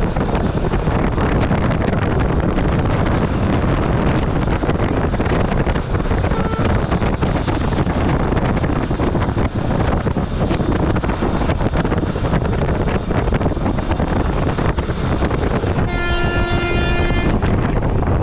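Express passenger train running at speed, a loud steady rumble of wheels on the track. About sixteen seconds in, a train horn sounds once for about a second and a half.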